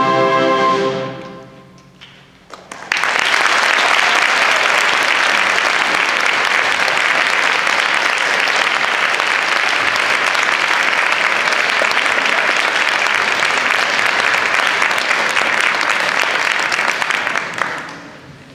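A concert band's final held chord dies away in the first two seconds. After a brief hush, the audience bursts into applause about three seconds in, which holds steady and fades out near the end.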